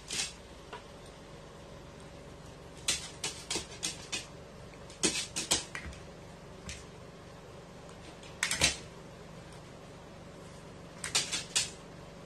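Five short clusters of sharp clicks and taps: a carrion crow's beak and claws tapping on a wooden floor and a plastic basin as it pecks at water balloons. A faint steady hum lies underneath.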